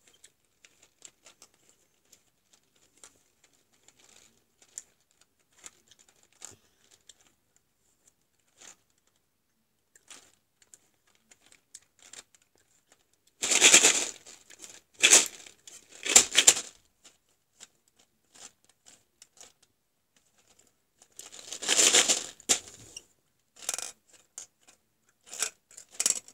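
A toy gumball machine being handled: faint scattered clicks and knocks, then a few louder rustling, scraping noises about halfway through and again near the end, with sharp clicks after them.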